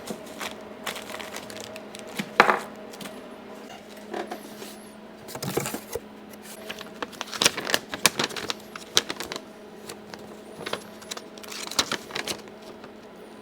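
Irregular small clicks, taps and clatter of hands handling a cordless oscillating multi-tool and its saw blade, fiddling at the blade mount that turns out to be missing its holding flange. A steady low hum runs underneath.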